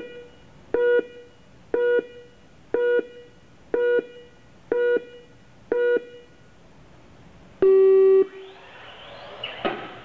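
Race-start countdown from an electronic timer: a string of short identical beeps about a second apart, then one longer, lower tone signalling the start. After it, small RC cars pull away with a whine that rises and falls in pitch.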